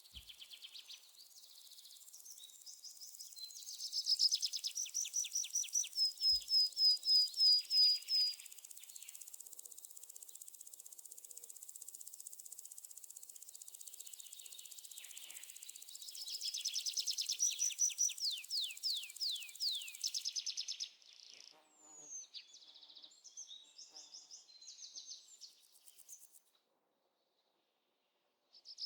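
Outdoor bird song: trains of repeated high chirps and quick downward-sweeping notes, over a faint steady high insect hum. It thins out to scattered notes and drops to silence for about two seconds near the end.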